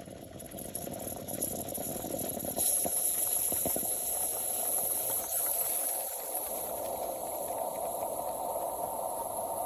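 Espresso machine hissing and bubbling with steam, growing louder over the first few seconds and then running steadily.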